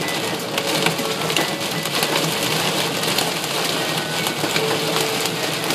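Hail and heavy rain hitting a car's windshield and roof, heard from inside the cabin: a steady hiss of rain dotted with many sharp ticks of hailstones.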